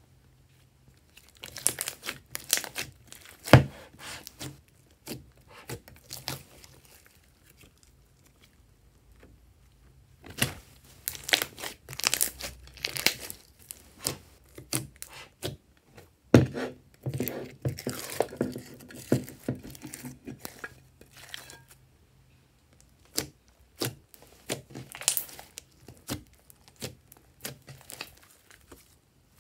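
Clear glitter slime studded with small beads being stretched, pressed and squeezed by hand: sticky crackling and popping in three spells, with quiet pauses between them.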